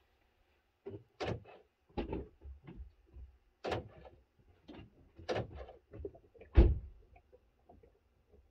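Car door of a 2001 Volkswagen Jetta opened and handled, a run of irregular knocks and clunks, with the loudest, deepest thump about six and a half seconds in as the door is shut. The engine is not yet running.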